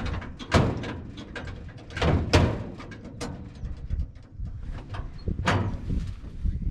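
The sloppy floor shifter of a 3-speed manual transmission being worked about, giving a series of metal clunks and rattles. The loudest knocks come about half a second, two seconds and five and a half seconds in. The shift linkage is loose and needs tightening up.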